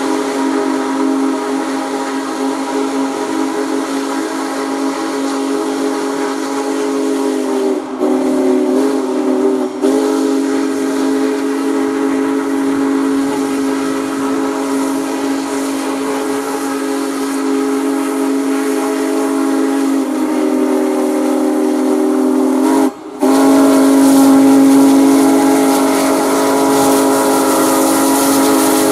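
Union Pacific Big Boy steam locomotive's chime whistle blowing in one long, loud blast of several tones at once. It wavers briefly twice around eight to ten seconds in, drops out for a moment about 23 seconds in, and comes back louder.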